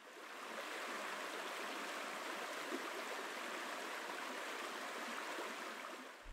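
Lake water lapping on a stony shore: a steady wash of water that fades in at the start and fades out just before the end.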